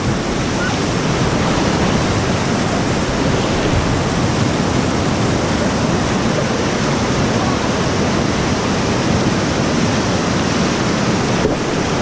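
Loud, steady rush of whitewater river rapids around an inflatable raft.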